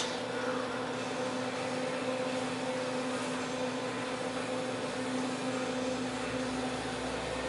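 Fan motor of a 1988 HARCO Electric screen printing dryer running in its sheet-metal duct: a steady electric hum with the rush of air from the blades.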